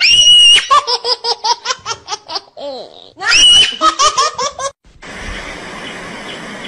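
High-pitched squealing laughter in two bouts, each a shrill held squeal breaking into rapid ha-ha pulses. About five seconds in it cuts to a steady outdoor hiss.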